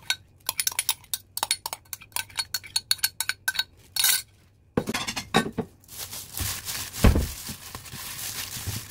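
A fast run of sharp metal clinks against a stainless-steel bowl for about four seconds. Then a plastic-gloved hand tosses wet cucumber slices with seasoning in the bowl, rustling and squelching, with one thump about seven seconds in.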